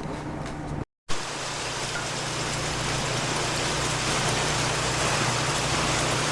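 Steady rain hiss with a low steady hum beneath it. The sound drops out for a moment at a cut about a second in.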